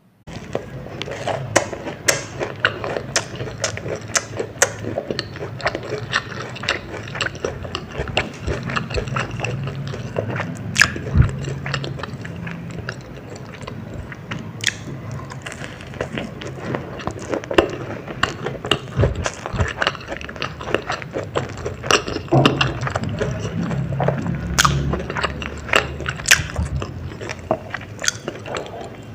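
Close-miked eating of a spicy baby corn dog: repeated biting and chewing with crunches and wet mouth clicks.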